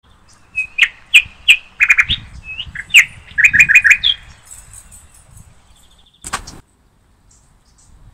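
Small bird chirping and tweeting loudly in quick runs of short notes for about four seconds. About six seconds in there is one short burst of noise, then the sound cuts off suddenly.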